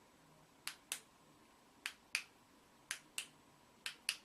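Sharp, short clicks in pairs, a quarter second apart, repeating about once a second: four pairs.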